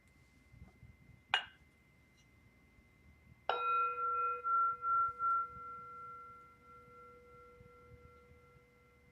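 A meditation bell struck once, ringing several tones that pulse for the first couple of seconds and then fade slowly over about five seconds. A short sharp tap sounds about two seconds before the strike.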